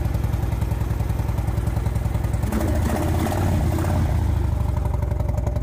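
Harley-Davidson touring motorcycle's V-twin engine idling steadily after being started. About two and a half seconds in, the engine note briefly rises, then settles back to idle. It sounds healthy.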